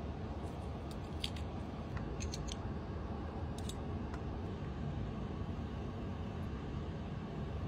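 Blood cockle shells clicking lightly as they are handled and pried open, several short clicks in the first half, over a steady low hum.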